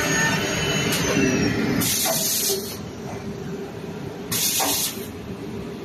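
A six-sided CNC panel drilling machine runs with a steady mechanical drone and tones, and one tone falls in pitch about a second in. Two short hisses of released compressed air come from the pneumatic gear, about two seconds in and again near four and a half seconds, and the machine is quieter after the first hiss.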